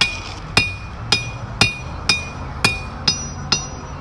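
A hammer striking metal about twice a second, eight blows at a slightly uneven hand pace, each one ringing briefly.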